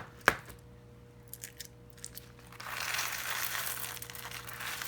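Crunchy slime packed with add-in chips being squeezed and kneaded by hand, giving a dense crackling and crunching from about two and a half seconds in, after two sharp clicks at the start.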